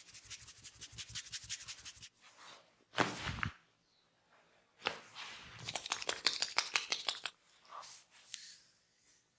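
Fingers scratching fast through hair and scalp in quick rasping strokes during a head massage. There is one heavier hit about three seconds in, and a second spell of fast scratching around the middle.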